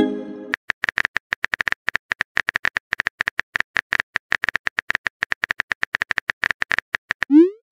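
Simulated phone keyboard typing sounds from a texting-story app: rapid, evenly spaced key clicks as a message is typed. Near the end, a short rising swoosh as the message is sent, then a brief pitched notification tone; a similar tone fades out at the start.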